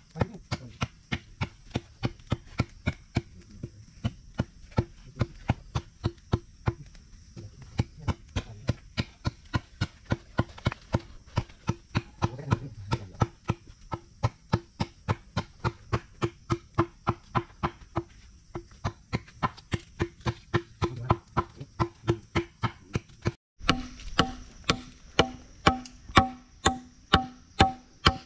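Background music with a steady percussive beat, about two to three short pitched strikes a second. Near the end it drops out for a moment and a louder beat with higher notes takes over.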